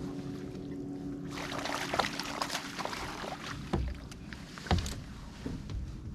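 Fishing kayak on the water: a steady hum fades out about two seconds in. Then comes a rushing, splashy noise with scattered knocks and a few dull thumps against the boat.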